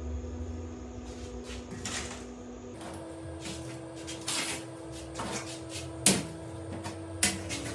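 Scattered knocks and clicks, as of hard parts being handled and set down, over a steady hum; the loudest knock comes about six seconds in, with another sharp one near the end.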